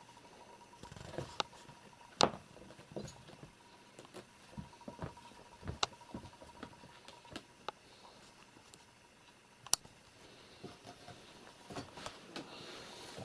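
Two young kittens playing on a rug and a bare floor: soft irregular pattering of small paws with scattered sharp taps and knocks. The loudest knocks come about two seconds in and again near ten seconds.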